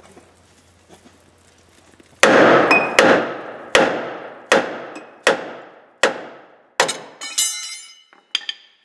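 Hammer striking the side of a torch-heated steel steering arm to break a worn drag link's tapered ball-joint stud loose. About seven hard, ringing blows land roughly one every three-quarters of a second, followed by a few lighter metallic clinks near the end.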